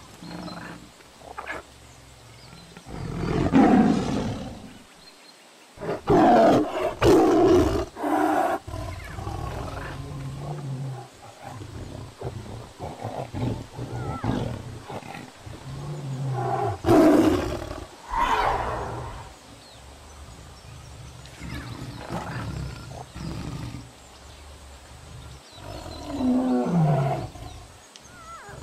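Big cats roaring and growling, as dubbed animal sound effects: several loud roars spread through the stretch, with lower growls and rumbles between them.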